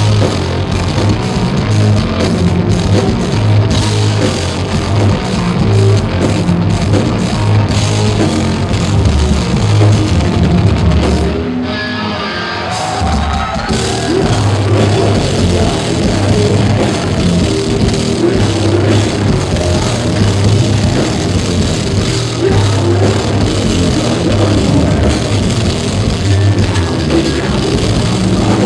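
Heavy metal band playing live at full volume, with distorted guitars, bass and drum kit heard through a poor-quality recording. About twelve seconds in, the cymbals and low end drop out for about two seconds, then the full band comes back in.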